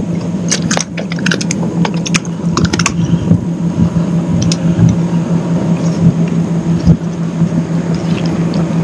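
Irregular sharp clicks and rattles from fishing gear being handled aboard a kayak, most of them in the first three seconds. Under them runs a steady low hum with rumbling water noise.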